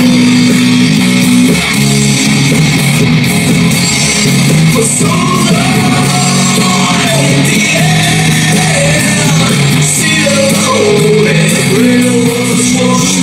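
Rock music with guitar and a singing voice played loud through a Bang & Olufsen Beosound Explore Bluetooth speaker running on its battery with the charger unplugged; it keeps playing without shutting down, the sign that its power fault is cleared. The singing comes in about four seconds in over steady bass notes.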